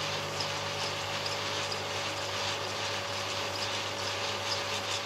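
Neckermann exclusiv 2000 Ton Super 8 sound projector running: a steady motor hum under an even mechanical hiss, with light irregular ticks.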